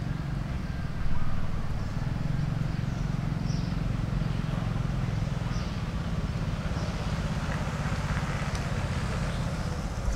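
Steady low rumble of a vehicle engine, with faint short high chirps every second or two.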